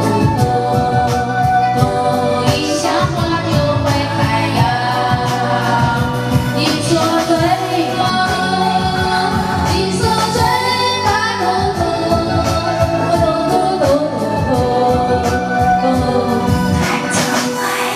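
Karaoke: a woman singing into a handheld microphone over a backing track played through the room's speakers.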